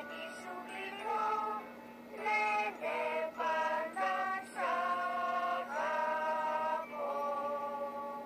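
Children's television song sung in Greek with its pitch raised unnaturally high: a run of sung notes, the last few each held about a second, over a steady low hum.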